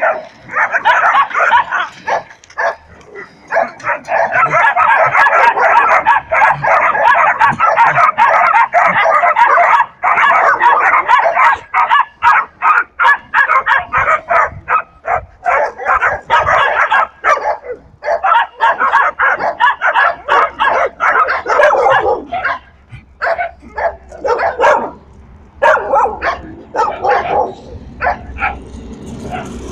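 A pack of dogs barking together: a dense, overlapping din for the first ten seconds or so, then quick separate barks that grow sparser toward the end.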